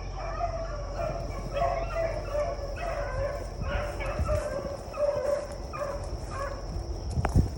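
A pack of beagles baying on a rabbit's track, a steady run of calls about every half second as the chase goes on. A steady high insect buzz runs beneath, and a sharp thump comes near the end.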